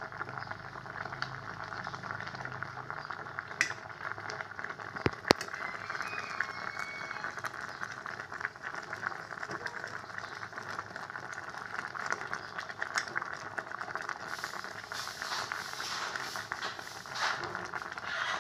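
Coconut milk with fish and petchay simmering in a stainless steel pot on low heat, a steady fine bubbling and crackling, while a utensil stirs through the pot. One sharp click about five seconds in.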